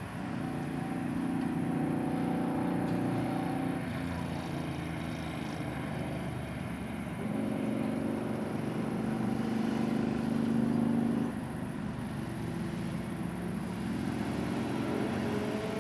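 Motor vehicle engines running, a steady pitched hum that swells twice, with a short rising whine near the end.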